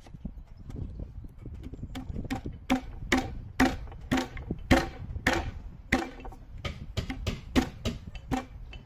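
Repeated knocks of a fist on the end of a dovetailed pine drawer corner, driving the joint together. The knocks come about two to three a second, starting about two seconds in, each with a short woody ring.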